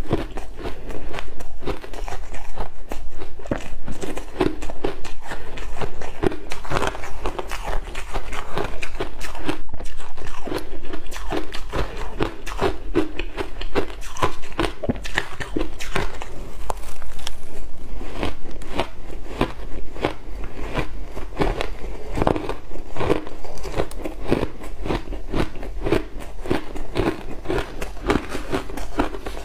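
Big mouthfuls of crushed ice being bitten and chewed, a dense, continuous run of crisp crunches and crackles picked up close by clip-on microphones.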